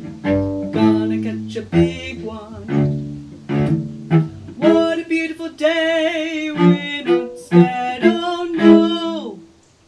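Melodic music on string instruments: a run of separate notes, with a long wavering held note around the middle. It dies away just before the end.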